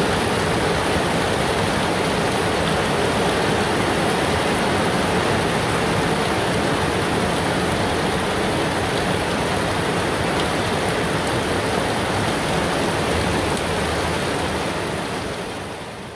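Heavy rain pouring down steadily, an even rushing noise with no letup, fading out near the end.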